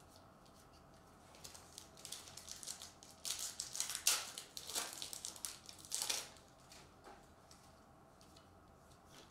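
Plastic wrapper of a Topps Series 2 baseball card pack crinkling as it is opened and handled, loudest from about three to six seconds in, then a few faint clicks.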